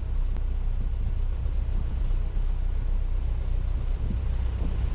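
Piper Cherokee PA-28-180's four-cylinder Lycoming O-360 engine running steadily at idle, a constant low drone.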